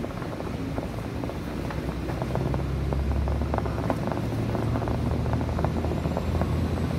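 Diesel railcar heard from inside the passenger cabin: a low engine hum that grows louder about two seconds in, with scattered small clicks and rattles.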